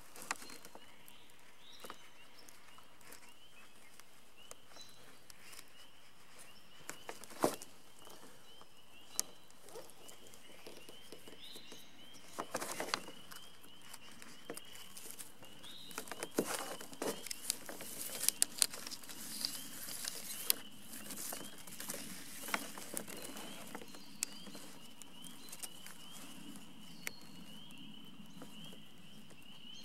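Stiff monofilm sail film and tape crinkling and crackling in irregular clicks and rustles as hands press a batten pocket into place, busiest in the middle of the stretch. A faint, wavering high tone is heard behind it.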